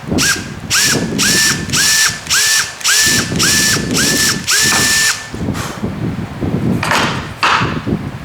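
Electric drill run in short trigger pulses, about two a second, each a quick rising whine that levels off; the last pulse runs a little longer. Two short bursts of scraping noise follow near the end.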